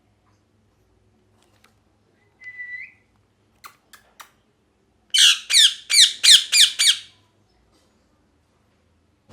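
Ringneck parrot giving a short whistle that rises at its end, then three sharp clicks, then a quick run of six loud harsh squawks, each falling in pitch.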